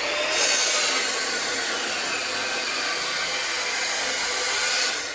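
Electric angle grinder spinning up and grinding on steel angle iron, a steady harsh whine that stops suddenly near the end.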